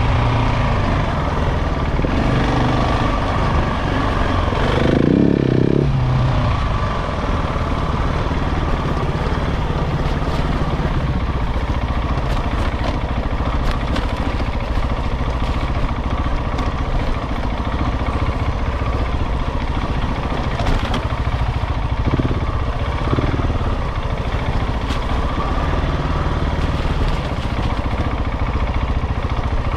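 KTM 690 Enduro's single-cylinder engine running while the bike is ridden, on a new engine still being run in. The engine note rises briefly about five seconds in, then holds fairly steady with small changes in throttle.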